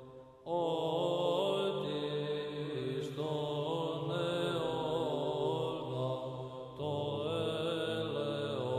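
Eastern Orthodox (Byzantine-style) chant: voices sing an ornamented melody over a held low drone. After a brief break at the start, the chant resumes about half a second in, and the drone drops to a lower note about seven seconds in.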